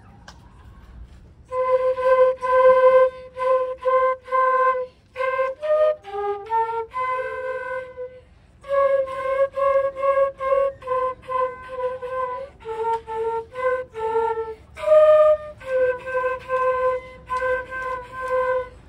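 A group of children playing flutes together, a tune of short detached notes, many repeated on the same pitch, that starts about a second and a half in and pauses briefly near the middle.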